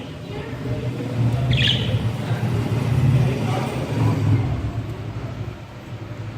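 A low rumble that swells through the middle seconds and then fades, with a single short budgie chirp about one and a half seconds in.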